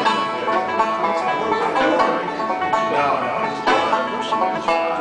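Bluegrass jam: a banjo picking a breakdown tune with acoustic guitar backing.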